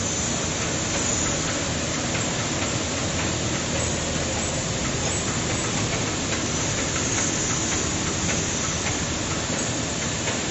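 Steady workshop machine noise: an even hiss over a low hum, with faint scattered clicks.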